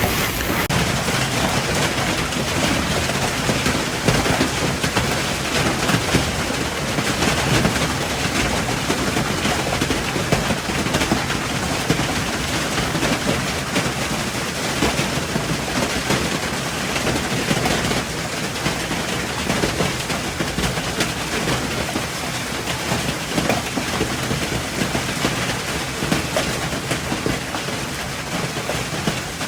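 A hailstorm with heavy rain pelting down: a dense, steady hiss made up of many small rapid impacts, easing slightly about two-thirds of the way through.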